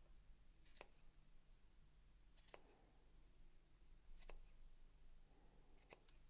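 Scissors snipping four times, evenly spaced about every second and a half, cutting through layers of knit fabric as the excess neck-binding seam allowance is trimmed back.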